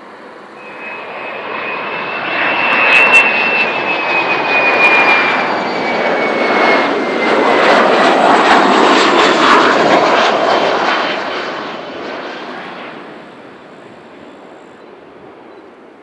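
Boeing 737-500 jet airliner with CFM56-3 turbofans flying past low on final approach: the engine noise builds over a couple of seconds, stays loud for about eight seconds with a high whine sliding slowly down in pitch, then fades away near the end.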